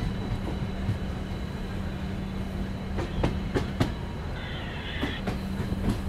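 Passenger train coach rolling slowly into a station, heard from its open door: a steady low rumble and hum, with a handful of sharp wheel clicks over rail joints about three to four seconds in.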